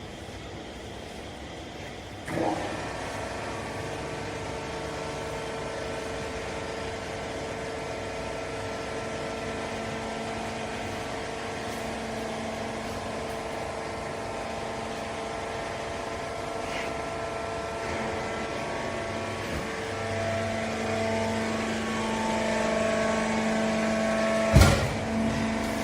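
Vertical baler's hydraulic power unit starting with a knock about two seconds in, then running with a steady hum that strains and grows louder near the end, where a sharp metal clank sounds.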